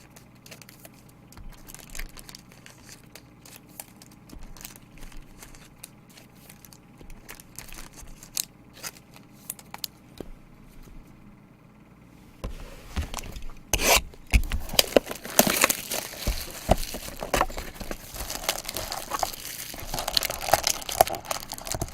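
Trading card pack wrappers being torn open and crinkled, with light clicks and rustling of handled cards at first, then louder, continuous crinkling and tearing from about twelve seconds in.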